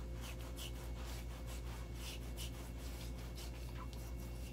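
A razor scraping across lathered stubble in a run of short, scratchy strokes, several a second, over a steady low hum.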